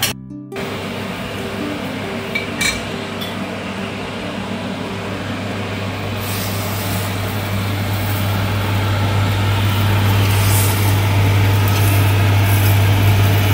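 Fish pieces in salted soybean (taucu) sauce cooking in a steel wok on a gas stove, stirred with a metal spoon, with a couple of clinks of the spoon on the wok in the first few seconds. A steady low hum grows louder in the second half.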